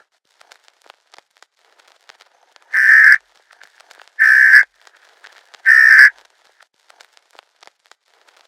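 Emergency Alert System end-of-message code: three short bursts of buzzy digital data tones, each about half a second, evenly spaced about a second and a half apart. These signal the end of the alert. Faint crackling clicks fall between the bursts.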